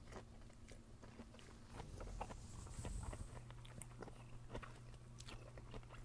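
Faint chewing of a mouthful of grilled squash and lobster salad, with scattered small clicks.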